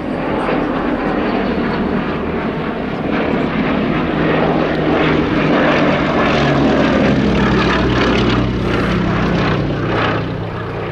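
Bristol Mercury nine-cylinder radial engine of a vintage propeller aircraft flying past. The sound grows louder, then drops in pitch and fades as the aircraft passes in the second half.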